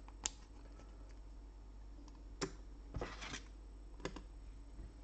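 Trading cards in hard plastic holders being handled and set down: a few light, separate clicks and taps, with a short cluster of them about three seconds in.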